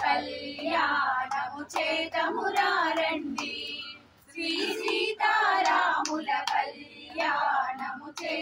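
A group of women singing a devotional song together, in short phrases with brief pauses between them.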